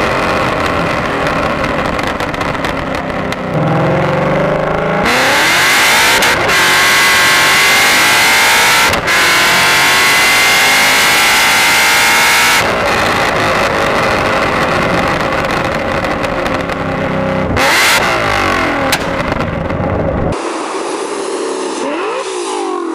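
Ford Mustang GT 5.0 V8 exhaust through AWE Touring axle-back mufflers, revving and accelerating in a string of cut-together clips, its pitch rising and falling with engine speed.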